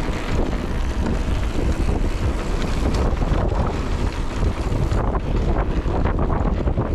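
Wind buffeting the GoPro's microphone as a Giant Reign mountain bike rolls fast down a dirt trail. Tyre noise runs under a steady rumble, with many small clicks and rattles from the bike over rough ground.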